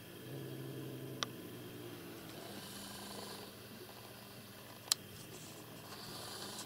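A cat's low rumbling growl, strongest in the first second and a half, then fading to a weaker rumble. Two sharp clicks cut in, about a second in and near five seconds in, the second louder.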